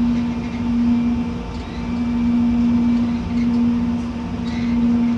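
Running noise inside a moving vehicle's cab: a steady rumble under one constant low hum that swells and eases a little every second or two.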